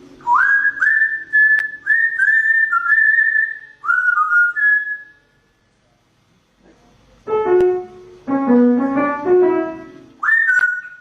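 A pet bird whistling a tune in a series of short notes that swoop up into pitch. After a pause, a phrase of piano music plays, and the bird starts whistling again near the end.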